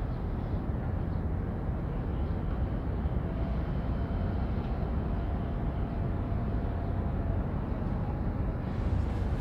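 Steady low rumbling noise of wind on the microphone, with no distinct events.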